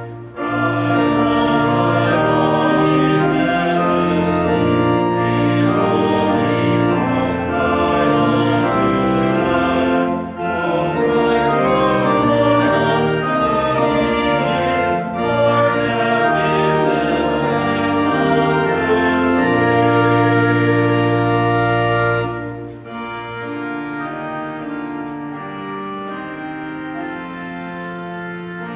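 Church organ playing a hymn in full, sustained chords that change every second or so, dropping to a softer, quieter passage about 22 seconds in.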